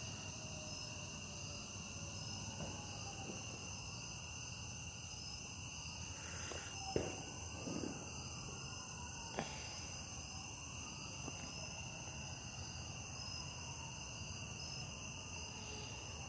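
Steady evening chorus of crickets and other insects, a continuous high trill at several pitches. A couple of soft knocks break in about seven and nine and a half seconds in.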